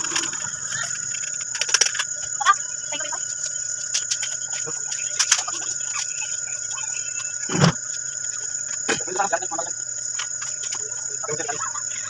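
Steady high-pitched chirring of crickets, with scattered clicks and knocks of handling and one dull thump about seven and a half seconds in.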